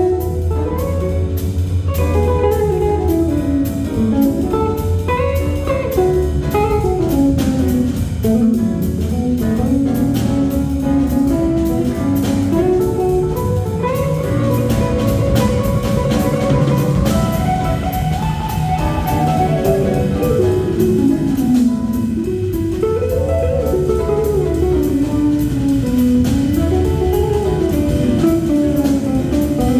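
Small jazz combo playing: an electric guitar runs a single-note solo line that winds up and down, over a drum kit keeping time on the cymbals and a low bass line.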